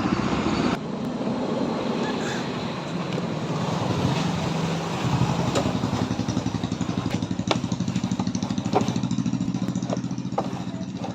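Motorbike engine running steadily, with a few sharp clicks over it in the second half.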